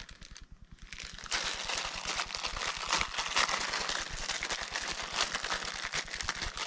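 Thin clear plastic bag crinkling and rustling as it is handled, starting about a second in and continuing as an irregular crackle.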